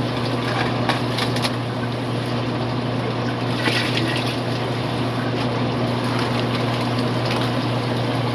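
Aquarium fish room's water pumps and filtration running: a steady low hum with water trickling. A few short rustles about a second in and again around four seconds in.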